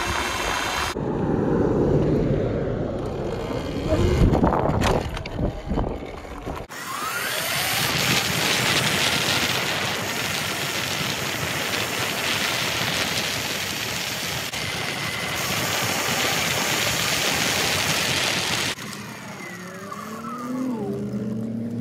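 Wind rushing over the microphone and tyre noise as a Segway X260 electric dirt bike is ridden at speed, with the sound changing abruptly a few times. Near the end it gets quieter and the electric motor's whine rises and falls.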